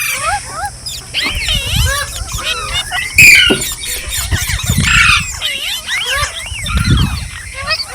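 Several green parrots chattering and screeching together, a dense run of quick rising-and-falling squeaky calls, with one sharp screech standing out a little after three seconds. A low rumble comes and goes underneath.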